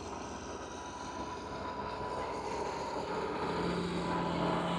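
Ford TW25 tractor's six-cylinder turbo diesel engine running steadily under load while pulling a six-furrow plough, growing a little louder, with a low steady hum coming in near the end.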